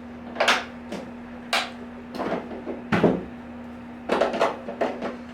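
Hard plastic parts of a Milwaukee M18 0880-20 cordless wet/dry vacuum being handled as its hose and attachments are tucked back into its onboard storage: a string of irregular clicks and knocks, the loudest about three seconds in and a quick cluster near the end.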